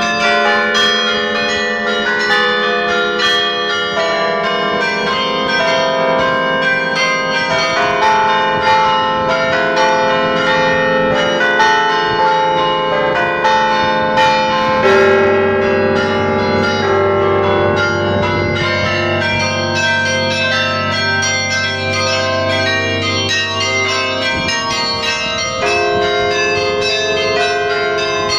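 The Belfry of Bruges' carillon playing a tune: many tower bells struck in quick succession, their tones ringing over one another, very loud. About halfway through a deep, heavy bell sounds and hums on under the melody.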